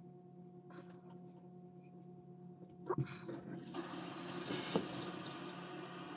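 A steady low electrical hum, a couple of sharp clicks about three seconds in, then a steady hiss like running water that starts almost four seconds in and keeps going.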